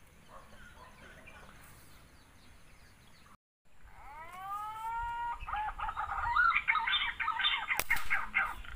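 Faint bird chirping, then a rooster crowing, its call rising at the start. Loud choppy chicken calls follow, with one sharp click near the end.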